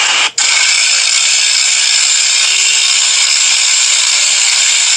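Blower forcing air into a burning charcoal bed: a loud, steady, high-pitched rushing hiss, broken by a brief dropout shortly after the start.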